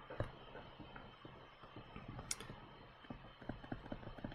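Faint, irregular taps and clicks of a pen stylus on a tablet screen during handwriting, with one sharper click a little past the middle.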